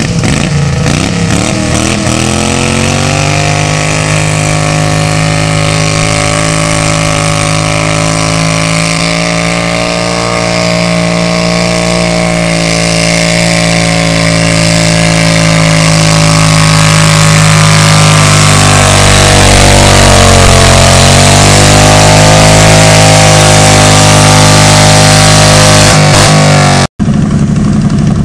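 A pulling garden tractor's engine running hard under load as it drags a weight sled down the track. It revs up in the first couple of seconds and then holds a steady pitch. The pitch sags briefly about two-thirds of the way through and recovers, and the sound grows louder as the tractor comes closer, then cuts off suddenly near the end.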